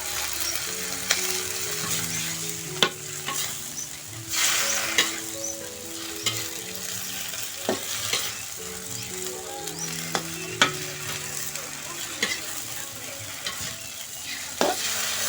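Food sizzling in hot oil in a pan, stirred with a utensil, with sharp clicks and knocks of the utensil against the pan every second or so.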